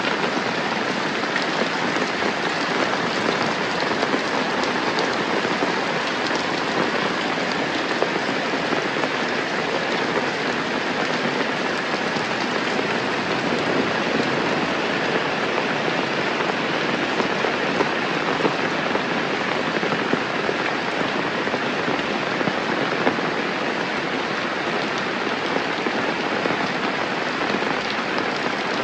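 Steady rain falling: a dense, even patter of countless drops that holds unchanged throughout.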